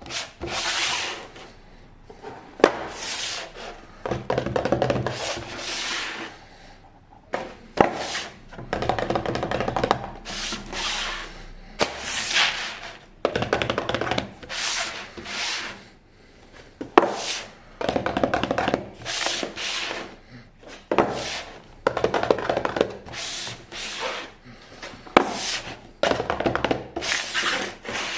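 Hands unboxing and handling toy packaging: repeated rubbing and rustling strokes, each lasting about a second, with occasional sharp taps and clicks.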